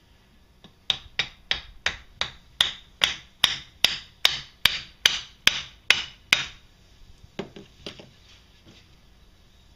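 A mallet striking the cylinder of a Can-Am Outlander/Renegade engine to tap it loose from the crankcase: about fifteen sharp hits at roughly two and a half a second, then a few lighter taps near the end.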